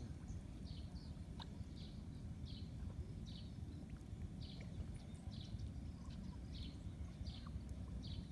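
A bird calling over and over in short, high, slightly falling chirps, about one every half second to second, over a low outdoor rumble.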